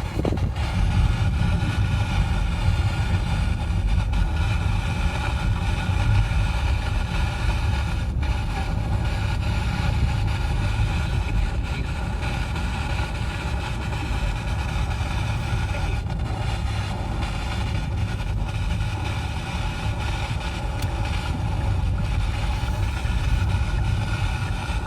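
Steady low rumble of engine and road noise inside a Hyundai car's cabin, with no sudden events.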